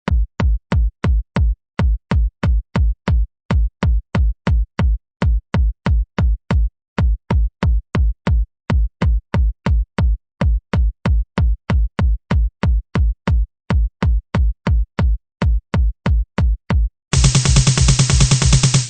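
Electronic dance music: a drum machine beat of short, punchy kick hits, about four a second with brief gaps now and then. Near the end a fuller, denser section of the track comes in.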